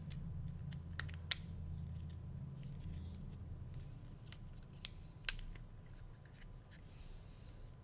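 Small scattered clicks and snaps of plastic steering-wheel button parts being handled and fitted, with two sharper snaps at about one and five seconds in, over a low steady hum.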